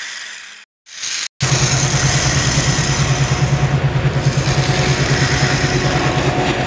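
A hiss that cuts out about a second in, then a loud, fast, steady engine chugging like a locomotive, about ten beats a second, as the toy train runs.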